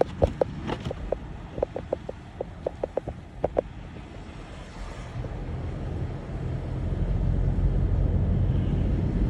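Low, steady rumble of a car on the move, growing louder about halfway through, with a scatter of short irregular clicks in the first few seconds.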